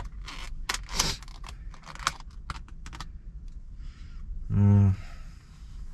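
Clear plastic takeaway food container crackling and clicking as it is handled, with a short low hummed voice sound about four and a half seconds in.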